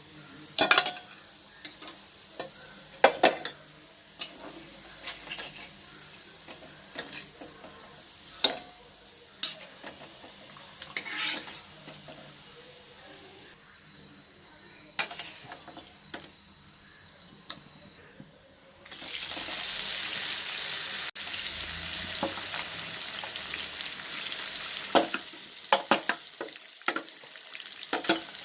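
Chicken pieces frying in coconut oil in a pan, stirred with a spoon that scrapes and knocks against the pan. The stirring keeps the coarse-ground spices from catching on the bottom. About 19 seconds in, the sizzling turns suddenly much louder and steady, and a few more knocks of the spoon come near the end.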